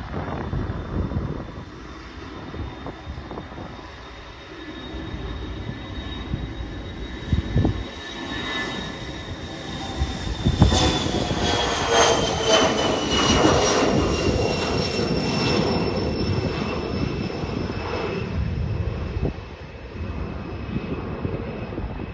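Business jet's turbofan engines passing close by. A high whine and a rumble swell to a peak about halfway through, and the whine drops in pitch as the jet goes past, then fades.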